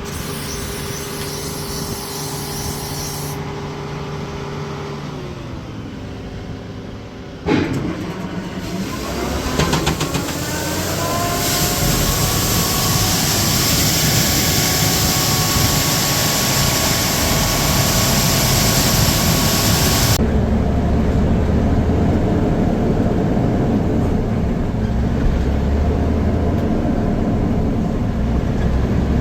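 Heavy diesel machinery running while wheat is loaded into a semi truck: a steady engine hum, then a sudden bang about seven and a half seconds in. After the bang a machine winds up with a rising whine, joined by a loud rushing noise that cuts off about twenty seconds in, leaving a low rumble.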